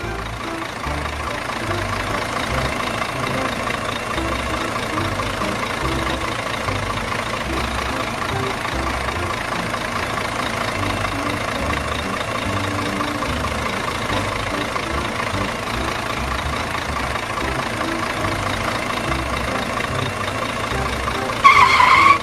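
An excavator running steadily, an even engine-like drone with a held whine in the middle of the range. Near the end a loud comic sound effect with a bending pitch cuts in.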